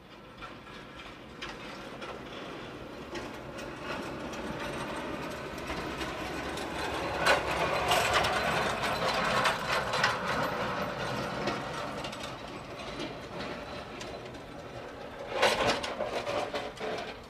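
Snowplow truck passing, its engine and plow blade scraping and rattling along the snow-covered road. The sound builds to its loudest about eight seconds in and then fades. Near the end a pickup truck fitted with a plow passes with a sharper burst of clatter.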